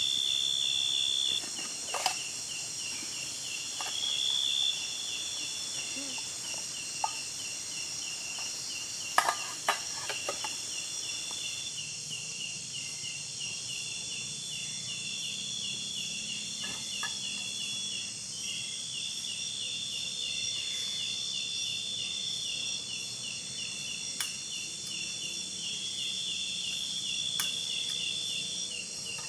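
Insect chorus of crickets or similar insects: a steady high buzzing with a fast, evenly pulsing trill underneath. A few short clicks come about two seconds in and again around nine to ten seconds in.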